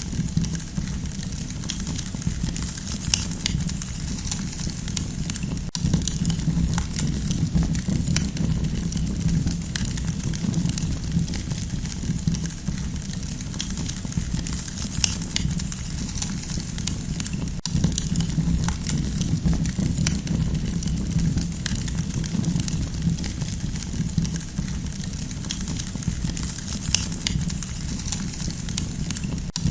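Campfire crackling, with many small, irregular pops over a steady low rumble.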